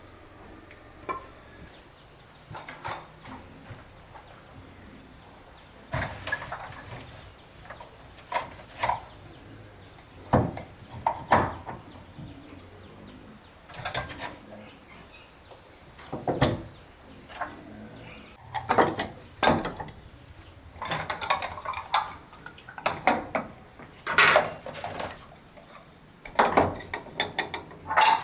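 Insects chirring steadily in high-pitched bands, with irregular knocks and clatters of hard objects being handled and set down, some in quick clusters.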